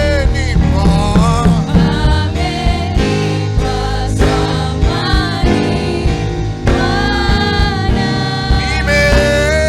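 Gospel song: a choir of voices singing over band accompaniment with bass and drums.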